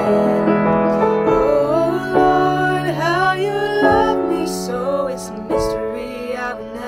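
A woman singing a song with piano accompaniment, her voice gliding over sustained piano chords.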